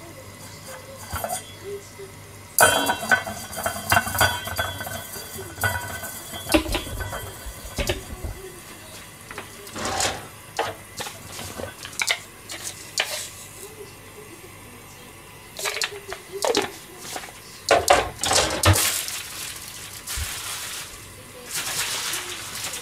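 Pots, pans and metal utensils being handled on a kitchen stove: a run of irregular clinks and knocks, with two short hissing stretches near the end.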